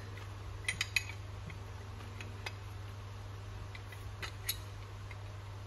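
Steel adjustable wrench being handled and its jaw worked back into place, giving scattered metallic clicks and clinks: three close together about a second in, then single ones later.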